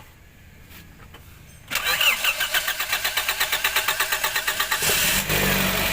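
A Toyota Vios engine being cranked by its starter: a fast, even pulsing that begins almost two seconds in. About five seconds in the engine catches and settles into a steady run. The hard start is what the mechanic traces to a crankshaft position sensor that is losing contact.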